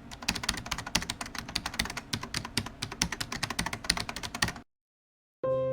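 Rapid clicking like computer-keyboard typing that stops abruptly about four and a half seconds in; after a brief silence, piano music begins near the end.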